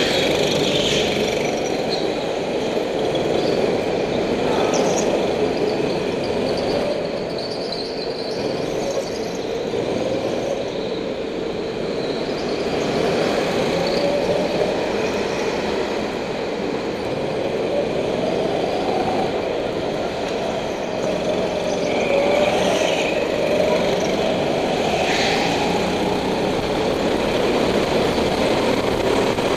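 Go-kart engine running continuously, heard from on board, its pitch rising and falling with throttle through the corners and straights. A few brief higher-pitched squeals break in near the start and again a little over two-thirds through.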